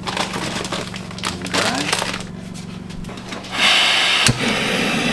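Pizza packaging crinkling and crackling as it is handled. About three and a half seconds in, a steady, loud rushing hiss starts abruptly.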